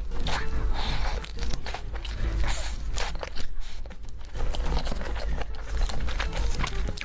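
Close-miked crunchy biting and chewing of food, a dense run of irregular crackles and crunches.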